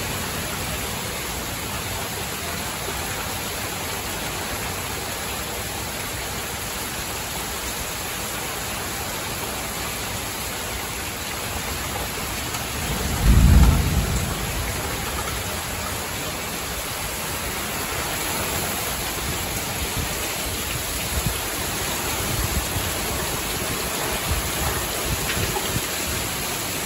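Heavy thunderstorm rain pouring steadily, heard from under a metal porch roof. About halfway through comes a brief low rumble of thunder, the loudest sound, and the rain grows a little heavier toward the end.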